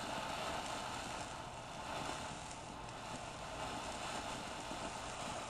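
Ground spark fountain firework burning with a steady, fairly faint hiss.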